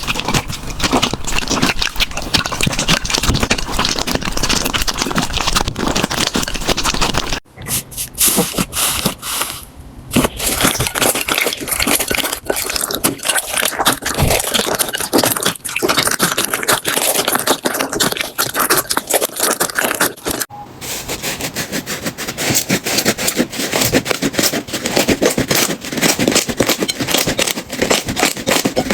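Slime being squeezed and pressed by hand, a dense run of crackles and small pops, in three clips with abrupt cuts about 7 and 20 seconds in.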